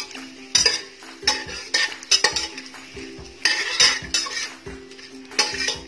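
A slotted spatula clinking and scraping against the inside of a steel pressure cooker several times while stirring whole spices frying in hot oil, with a light sizzle.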